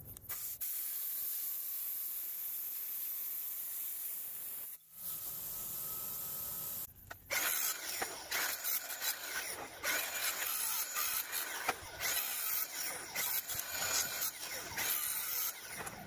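Miller Spectrum 625 X-Treme plasma cutter torch cutting steel plate, a steady hiss that breaks off briefly near the middle and stops about seven seconds in. Then a Milwaukee M18 angle grinder cuts into the steel plate with a louder, uneven grinding noise that rises and falls as the disc bites.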